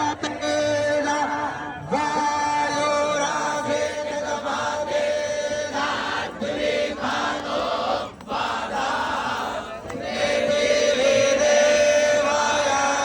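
Group of voices chanting Sanskrit mantras in unison, holding long notes with short breaks between phrases.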